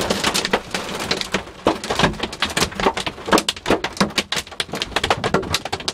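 Heavy hail pelting a car's body and windows: a dense, irregular clatter of hard hits.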